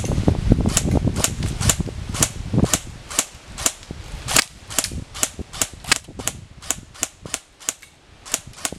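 Airsoft rifles firing single shots, a sharp snapping click about twice a second, irregularly spaced, from two shooters. A low rumble runs under the shots during the first three seconds.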